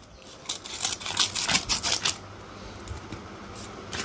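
Light, irregular clicks and taps, several in the first two seconds, over a faint steady hiss.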